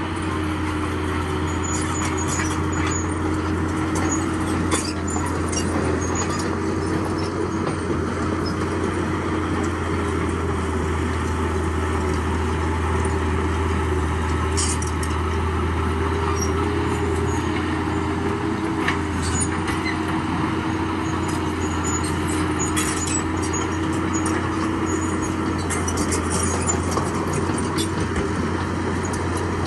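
Heavy diesel earthmoving machinery, a bulldozer, running steadily under load, with scattered sharp metallic clicks and clanks over the engine drone.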